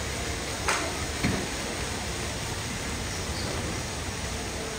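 Steady hiss of shop ambience around an N-gauge model railway layout, with two sharp clicks about half a second apart about a second in.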